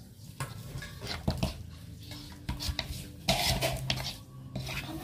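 Metal spoon clinking and scraping against a pan while pieces of grilled chicken are stirred into a thick spice sauce, with a busier run of scraping about three seconds in.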